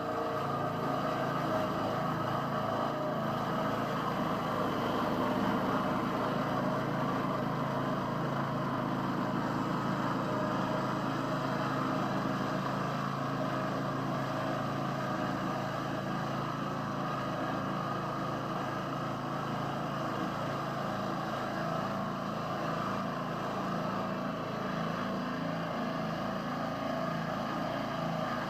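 Small home-built swingblade sawmill running steadily under heavy load as it cuts fully seasoned, dry yellow box hardwood with an unsharpened blade, working at the limit of its capacity.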